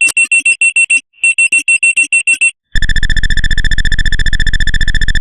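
Emergency alert system attention tones: two runs of rapid high-pitched beeps, then, just past halfway, a loud steady buzzing alert tone.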